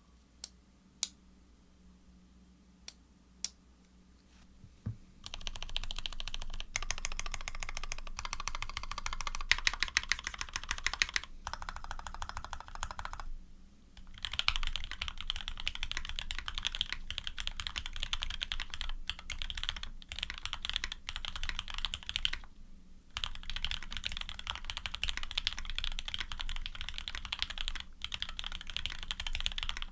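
Typing on a custom Serratus mechanical keyboard with lubed Cherry-top + H1 switches on an aluminium plate, with GMK keycaps. A few single key presses come first, then fast continuous typing starts about five seconds in, broken by two short pauses.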